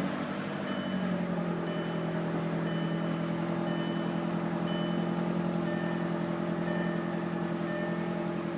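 2003 VW GTI engine idling steadily just after starting on a battery recharged from dead, with faint short high beeps repeating in the background.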